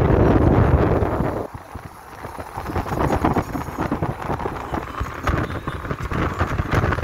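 Wind buffeting the microphone and road noise while riding in an open-sided auto-rickshaw, a rough rush with irregular thuds, loud for the first second and a half, then dropping and building back up.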